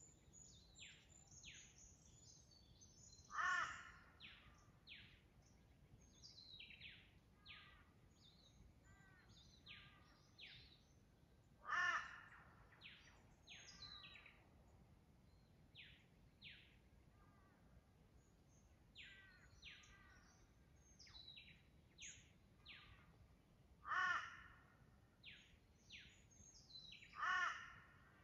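Forest dawn chorus: many birds giving short, quick, falling whistled notes, with a much louder call from one bird breaking in four times, about three seconds in, near the middle, and twice near the end.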